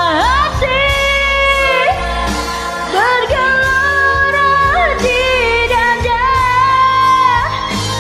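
A woman singing a slow Indonesian pop song over a karaoke backing track, holding long notes with scoops up and down in pitch.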